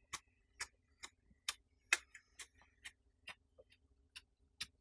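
Faint, sharp ticks repeating evenly about twice a second, with a few faint high chirps between them.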